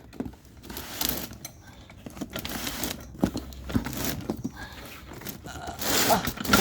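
Cardboard and plastic packaging crinkling and scraping, with scattered knocks, as a trolley jack is worked out of its box.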